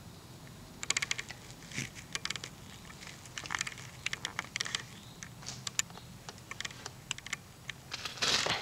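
Footsteps on a floor of loose broken bricks: irregular clusters of sharp clinks and crunches as the bricks shift underfoot.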